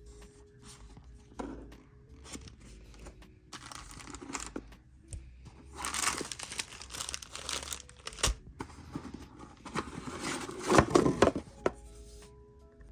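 Packaging being handled: irregular crinkling and tearing with a few sharp clicks, in two louder spells midway and near the end.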